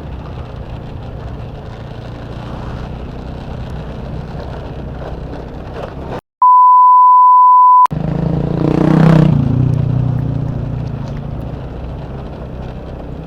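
Motorcycle riding noise, a steady low engine and road rumble, broken about six seconds in by a sudden cut and a loud steady one-tone beep lasting about a second and a half, like an edited-in censor bleep. The rumble then returns louder, rising and falling in pitch for a moment before settling.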